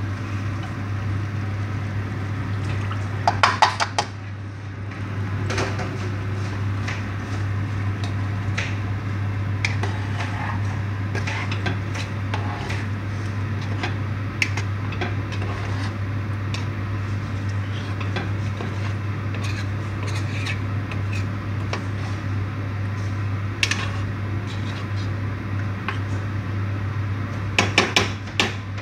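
A metal spoon stirring creamy stew in a cooking pot, scraping and clinking against the pot, with a quick run of clinks about three seconds in and again near the end. A steady low hum runs underneath.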